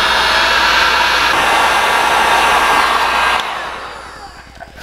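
Electric heat gun blowing steadily while heating the end of a spiral-reinforced PVC hose, then switched off about three and a half seconds in, its fan running down.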